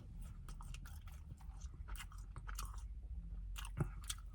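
A person chewing food close to the microphone: quiet, irregular small crunches and mouth clicks over a low hum.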